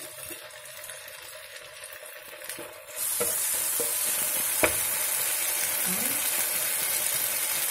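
Chopped onion, spring onion, capsicum and green chilli sizzling in oil in a frying pan while a wooden spatula stirs them. The sizzle is quieter at first, then jumps suddenly louder about three seconds in. A little later there is one sharp knock of the spatula against the pan.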